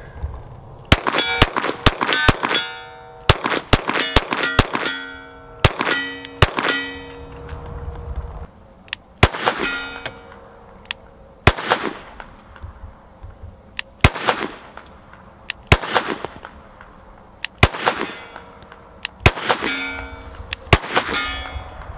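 Glock 44 .22 LR pistol firing a long string of shots at a steel plate. Each crack is followed by the clear ringing clang of the plate being hit, with a short pause partway through.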